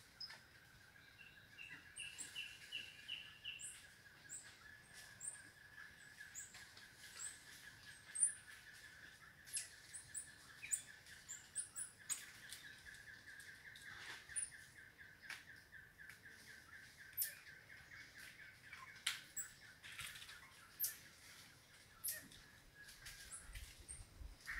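Faint forest birdsong: scattered short high chirps and calls over a steady, rapidly pulsing high trill, with a short run of repeated notes about two seconds in and many brief sharp clicks.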